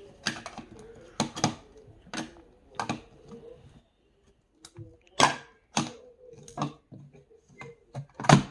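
Hard plastic toy building blocks clicking and clattering as they are handled and snapped together, in an irregular run of sharp clicks with a louder knock about five seconds in and another near the end.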